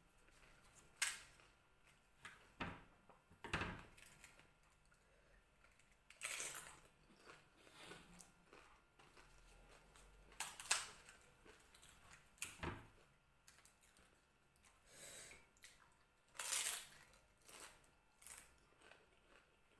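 Fuchka (pani puri) being eaten fast: crisp hollow puri shells are cracked open with a finger and then bitten, crunched and chewed. The sound comes as scattered sharp crackles and crunches with quiet gaps between them.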